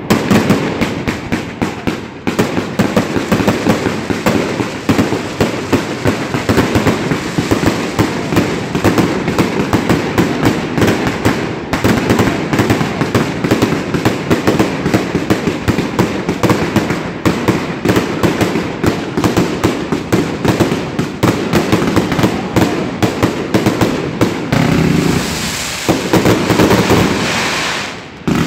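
Triplex TXB869 600-shot 1.2-inch firework cake firing a rapid, continuous barrage, many shots a second. For a few seconds near the end the shots run together into a steadier hiss, then briefly drop away.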